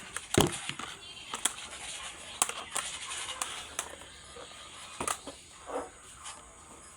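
Toy packaging being handled and opened: crinkling and rustling, with sharp clicks and taps scattered through, and quieter after about four seconds.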